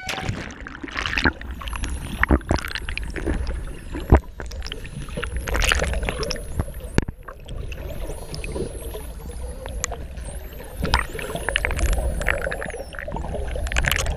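Underwater sound just below a choppy surface: water sloshing and bubbling around the camera housing, with irregular sharp pops and knocks. Many faint high whistles glide up and down over it.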